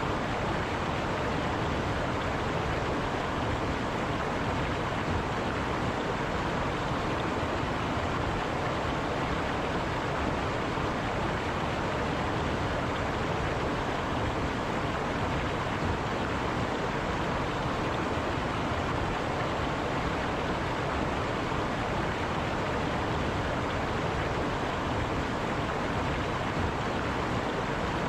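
River water rushing steadily over rocks, an even continuous roar of flowing water with no breaks.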